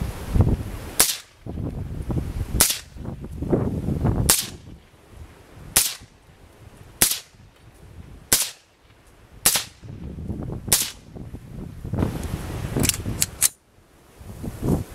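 Suppressed 5.56 short-barreled AR-15 rifle (10.5-inch barrel, Silencerco Saker 5.56 suppressor) firing semi-automatic: eight single shots about one to one and a half seconds apart, then a quick string of three or four shots near the end.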